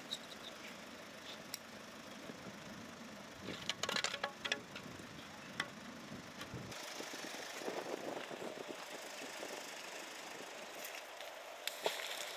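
Scattered clicks and a short clatter as a rusty flat iron find is handled at the water's edge, then a steady hiss of open-air background; near the end a splash as the fishing magnet is thrown into the water.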